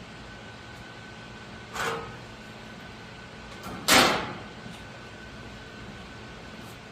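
Two bangs about two seconds apart, the second louder and briefly ringing, over a steady hiss with a faint high whine.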